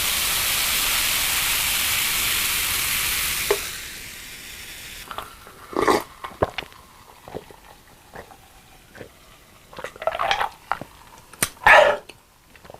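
A steady hiss for about three and a half seconds that then drops away, followed by close-miked eating sounds: scattered small clicks and crunchy, wet bursts of biting and chewing, loudest a little before the end.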